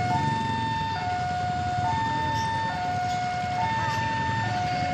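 Railway level-crossing warning alarm sounding a steady electronic two-tone signal, switching between a lower and a higher tone about every second, over a low rumble. A few short chirps come in near the end. The alarm means a train is approaching the crossing.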